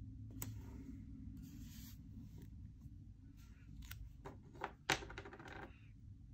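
Faint paper handling as stickers are peeled and pressed onto a planner page: soft rustles and a few small clicks and taps, over a low steady hum.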